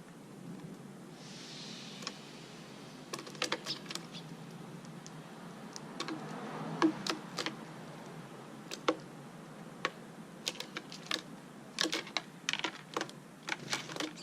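Irregular light clicks and taps of small hard objects being handled, coming in loose clusters, with a short hiss about a second in.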